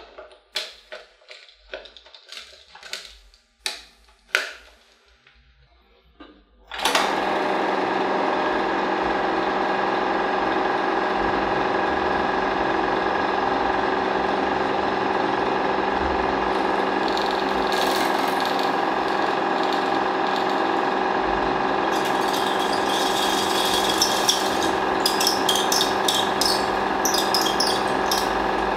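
Chinon Sound 8500 Super 8 projector: clicks and knocks as a film reel is fitted to its arm and the film end is handled, then, about seven seconds in, the projector starts up and runs with a steady mechanical whirr made of several steady tones as it pulls the film through. Over the last third a rapid high clicking rides on top of the running sound.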